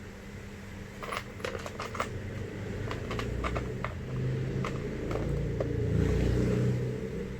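Handling noise: irregular light clicks and small knocks over a low rubbing rumble that gets louder in the second half, as small tools and packaging are handled.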